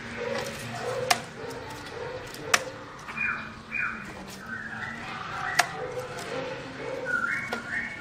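Black-throated laughingthrush in a bamboo cage singing a varied run of short whistled and warbled notes. Three sharp clicks, about one, two and a half and five and a half seconds in, are louder than the song.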